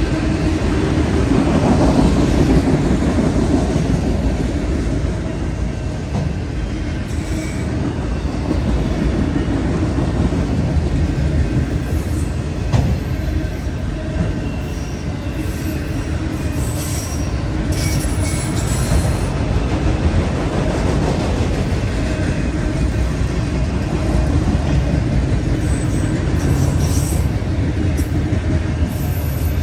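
Freight train of autorack cars rolling past close by: a steady rumble and rattle of steel wheels on the rails, with a few short high wheel squeals.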